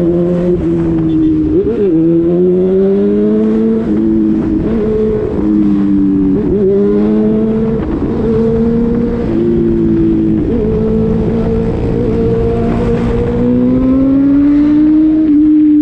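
Vehicle engine running hard, its pitch held steady for a second or two at a time, then rising and dipping as the revs change.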